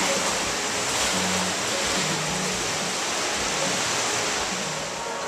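Ocean surf breaking and washing up the beach, a steady rush of water noise.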